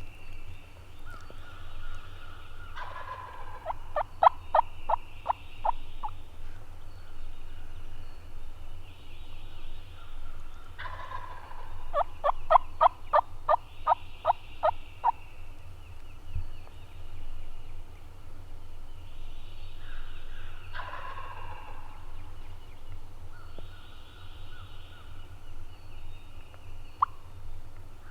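Wild turkey gobbler gobbling three times, about eight to ten seconds apart. The first two gobbles run on into a rapid rattle of notes lasting about two seconds.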